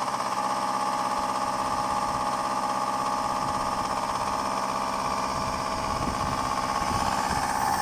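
Subaru EJ201 2.0-litre flat-four running cold with a fast, steady knock, which the owner takes for piston slap that goes away once the engine warms up.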